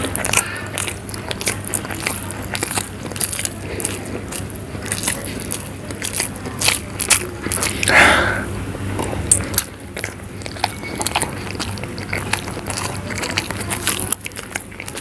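Close-up chewing and mouth sounds of a person eating hard-boiled eggs in gravy: many short wet clicks and smacks throughout, with one louder, longer burst about eight seconds in. A steady low hum runs underneath.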